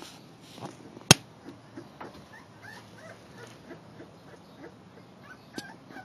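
Puppy whimpering in many short, high squeaks through the second half. One sharp click or knock, the loudest sound, comes about a second in.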